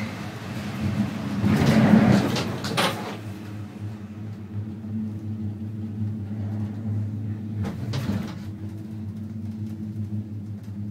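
Inside a Poma detachable gondola cabin running on the cable: a steady low hum, with a loud rattling clatter about two seconds in as the cabin runs out of the station, and a shorter clatter near eight seconds as it rolls over the sheaves of a line tower.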